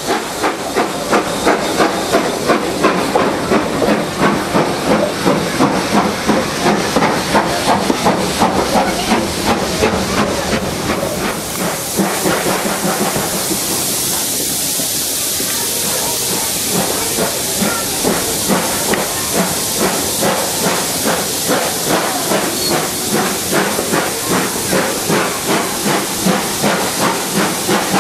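Steam locomotive hauling a train: a quick, even run of exhaust beats, about two to three a second, under a hiss of steam. About twelve seconds in, a louder high hiss takes over and the beats fade, then fainter beats come back.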